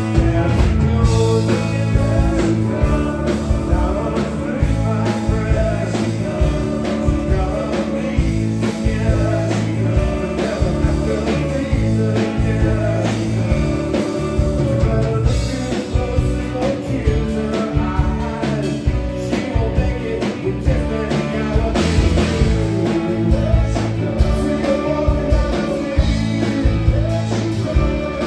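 Live rock band playing, with electric guitars, bass, keyboard and drums, and a man singing lead into the vocal mic.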